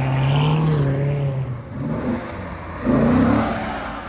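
Two C7 Corvette V8 engines pulling away one after the other. The first rises slightly in pitch and fades, and a second car accelerates more loudly about three seconds in.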